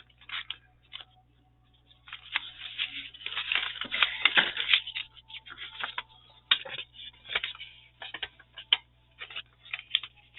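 Paper and craft pieces handled on a work table: a stretch of rustling and scraping of paper from about two to five seconds in, then scattered light taps and clicks.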